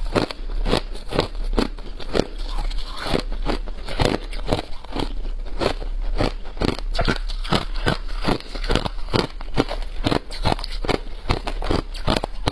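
Crushed ice being chewed close to the microphone: a steady run of crisp crunches, about three a second.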